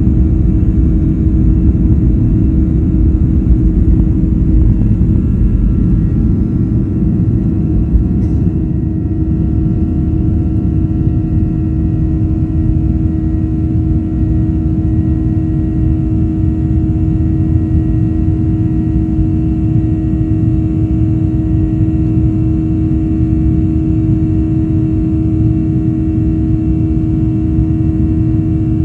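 Boeing 737-800's CFM56-7B turbofan engines at takeoff thrust, heard from inside the cabin: a loud steady roar over a steady hum. The deep runway rumble eases about six seconds in as the plane lifts off and climbs. A brief click comes about eight seconds in.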